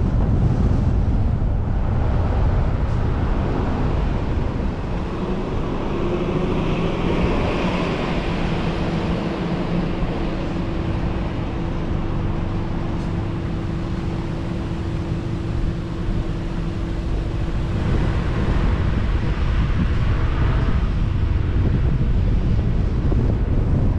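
Car driving: steady road and wind rumble, with a low hum that rises slightly about five seconds in, holds steady, and fades about twenty seconds in.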